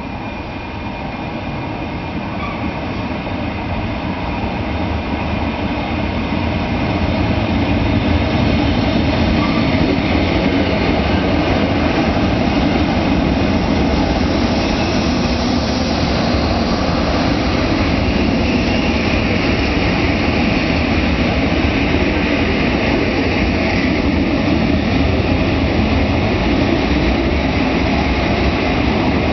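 PKP EN57 electric multiple unit approaching along the platform and running past: a rail rumble that grows louder over the first several seconds, then holds steady.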